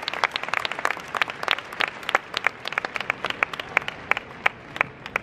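Arena crowd applauding after a point: dense clapping that thins out to a few scattered claps about three a second near the end.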